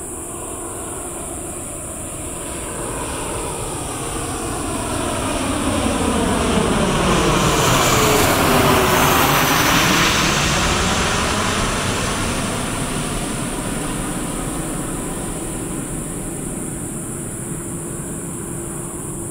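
Jet aircraft engines passing overhead, swelling to a peak about eight to ten seconds in with a sweeping whoosh, then slowly fading.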